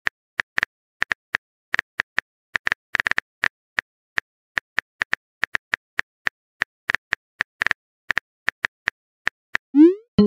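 Phone keyboard typing clicks: a long run of short, light taps at an irregular pace of a few per second. About half a second before the end comes a brief rising swoop.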